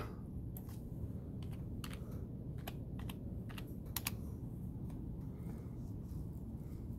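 Typing on a computer keyboard: a quick, uneven run of key clicks for about the first four seconds, then only a low steady hum.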